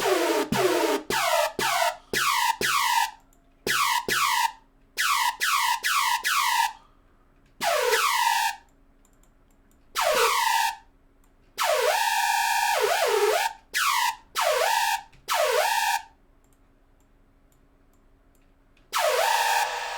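Software synthesizer notes played one after another in short bursts with pauses between. Each note drops steeply in pitch, and a couple of longer notes near the middle hold a wavering tone before falling.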